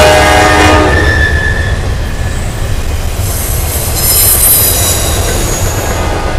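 A freight locomotive's horn chord cuts off about a second in, leaving the steady rumble of a long intermodal freight train's cars rolling past. Around the middle, high-pitched steel wheel squeal rises over the rumble.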